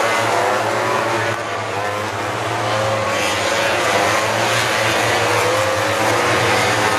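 A pack of MotoGP race bikes, 1000 cc four-cylinder four-stroke engines, running hard through a corner. Several engine notes overlap, their pitch rising and falling as the bikes pass.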